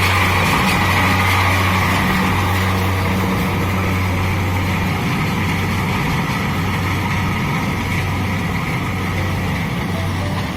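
Kubota DC-70 rice combine harvester running steadily: a diesel engine hum under the noise of the working machinery, easing off slightly in loudness.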